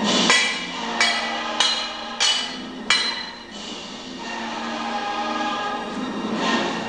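Live music with singing: voices holding sustained notes, cut through by five sharp percussive hits in the first three seconds.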